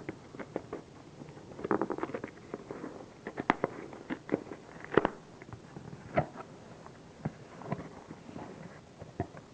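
A cardboard shipping box being opened by hand, with its packing peanuts being stirred: irregular rustling, crackles and sharp clicks, busiest about two seconds in.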